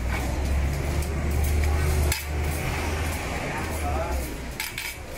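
Metal utensils clinking against pots and pans while food is cooked, a few sharp clinks over a steady low hum that drops back about two seconds in.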